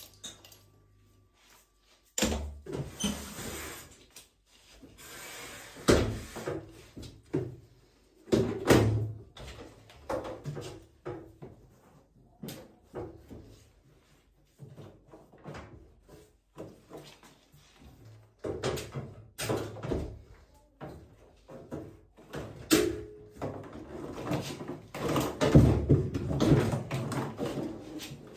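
Irregular knocks, bangs and metallic clattering from work on a washing machine being dismantled for a drum and bearing change. The knocks start about two seconds in and grow denser and louder near the end.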